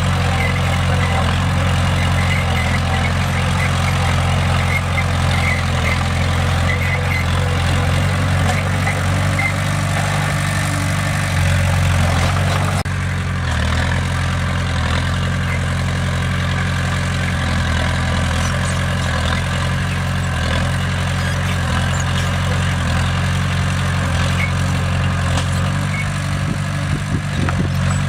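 Bulldozer's diesel engine running steadily, its sound shifting slightly about thirteen seconds in.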